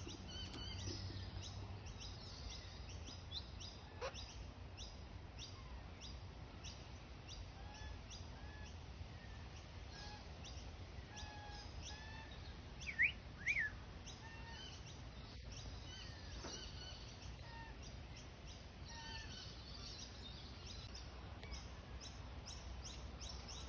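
Birds calling: rapid high chirping throughout with short whistled notes, and two loud rising calls about thirteen seconds in.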